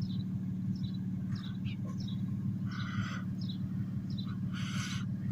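Birds calling: short falling chirps about twice a second, with two harsher, longer calls about three seconds in and near the end, over the steady low hum of an idling vehicle engine.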